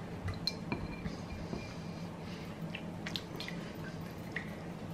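Silicone spatula stirring a thin sauce in a ceramic bowl: faint liquid squishing with scattered light ticks of the spatula against the bowl.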